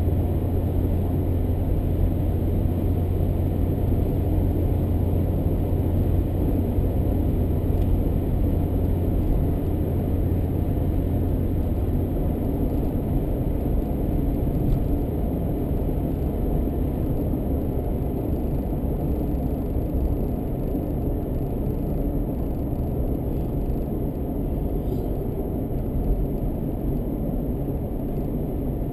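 Car driving along a road: steady engine and tyre rumble. A low hum in it eases off about twelve seconds in.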